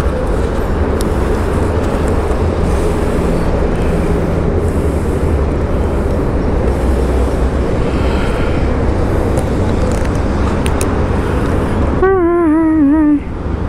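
Steady road-traffic noise with a low rumble. About twelve seconds in, a wavering, warbling tone sounds for about a second and then cuts off.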